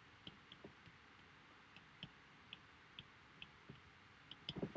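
Faint, irregularly spaced light clicks of a stylus tip tapping an iPad Pro's glass screen during handwriting, a dozen or so over near silence, with a quick pair near the end.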